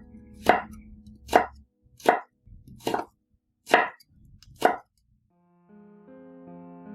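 A kitchen knife cutting down onto a cutting board in six separate strokes, a little under one a second. Background music with sustained notes starts near the end.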